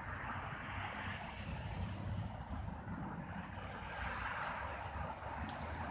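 Distant jet airplane passing high overhead: a steady, even rumble.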